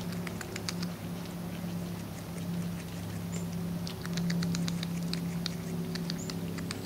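A beaver gnawing and chewing bark off a twig held in its front paws: a run of crisp clicks and crunches, busiest from about four seconds in. Underneath is a steady low hum.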